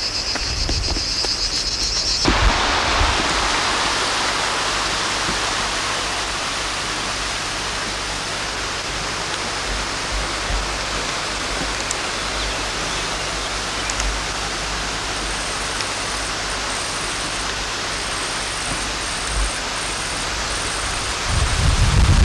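A steady, even hiss. For the first two seconds a high steady tone sounds over it and then stops, and near the end a low rumble joins in.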